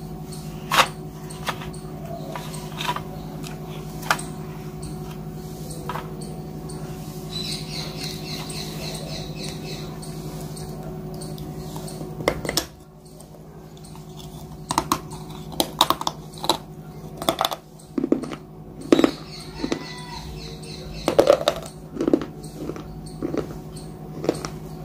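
Close-up crunching and chewing of crisp fried puri. Sharp crunches come a few at a time at first, then more often and louder in the second half, over a steady low hum.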